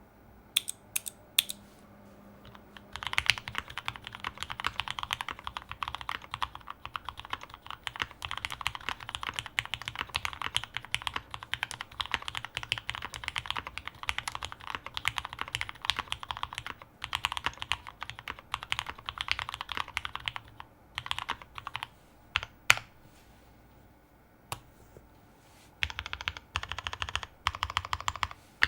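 Typing on a plateless custom mechanical keyboard with lubed and filmed Cherry Hyperglide Black linear switches and GMK keycaps. A few single keystrokes at first, then steady fast typing from about three seconds in until about twenty seconds, then scattered strokes, a short pause, and typing again near the end.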